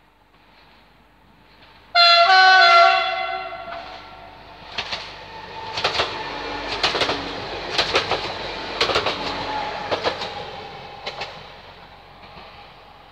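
Regional passenger train sounding its horn once, a sudden loud chord of several notes that fades after about a second and a half. Its wheels then clatter over the rail joints for several seconds as it passes, and the sound dies away near the end.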